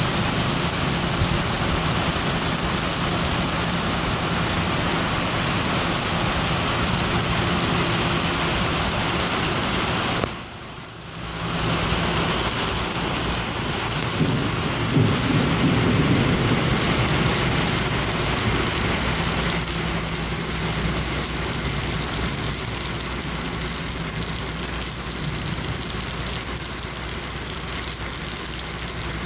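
Steady rain falling on a metal canopy roof and wet concrete, a continuous hiss, with a low rumble about halfway through.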